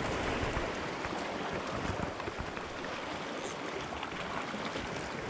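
Small sea waves washing and lapping over shoreline rocks, a steady wash of water.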